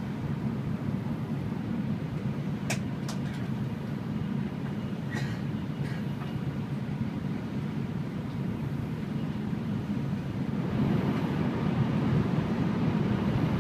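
Steady running noise of an N700 Series Shinkansen heard inside the passenger car: a low rumble with a few faint clicks in the first few seconds. It grows louder about eleven seconds in.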